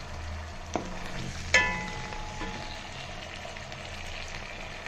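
Sliced potatoes and onions sizzling in hot oil in a pan with vinegar, soy sauce and chili sauce, stirred with a wooden spatula. Two knocks, the second about a second and a half in with a brief ringing tone.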